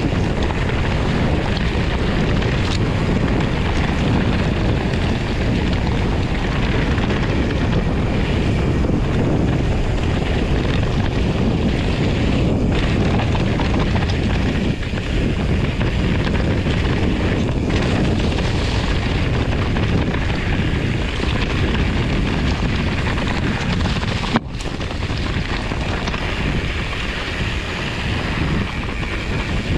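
Wind buffeting the microphone of a camera riding along on a fat-tire mountain bike: a steady dense rumble with hiss above it. There is a short click and a drop in level about 24 seconds in.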